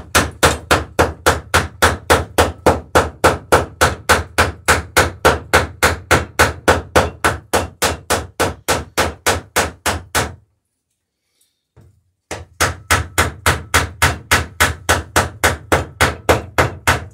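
Rapid, even hammer blows riveting the lapped planks of a wooden dory, about four a second. The hammering stops about ten seconds in and starts again about two seconds later.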